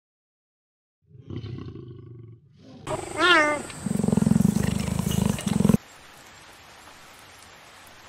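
Big cats vocalising: a lion's low growl about a second in, then a short wavering cry and a loud, fast-pulsing low growl from a cheetah, which cuts off sharply a little past the middle.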